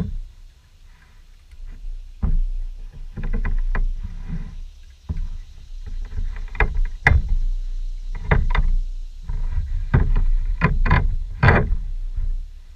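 Irregular knocks, taps and scrapes as a utility knife and gloved hands work on a dead snake lying on a covered surface, over a steady low rumble.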